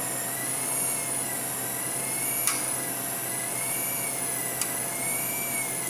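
Geared electric linear actuator (100 mm travel, 210:1 gear ratio) running steadily with a high, slightly wavering whine as it raises an RC dump truck's bed under a 10-pound steel weight: it struggles but keeps lifting. A faint tick about two and a half seconds in and another later on.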